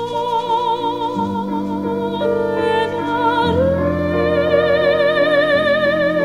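Background music: a slow melody of long held notes with heavy vibrato over sustained chords, sliding up to a higher note about three and a half seconds in.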